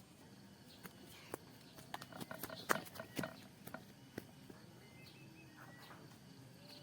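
A run of light, irregular taps and clicks, busiest in the middle, over faint outdoor background.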